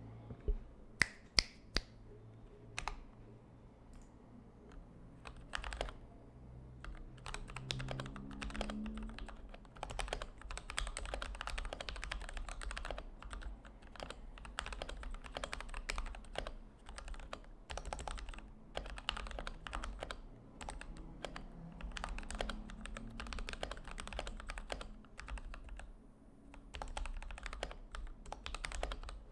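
Typing on a 60% mechanical keyboard built on a DZ60 PCB: a few separate sharp keystrokes about a second in, then steady fast typing from about five seconds on, over a faint low hum.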